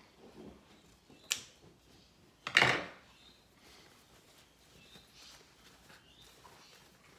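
Scissors snipping through the end of a zip with a sharp click, followed about two and a half seconds in by a louder, short clatter, then faint fabric rustling as the pencil case is handled.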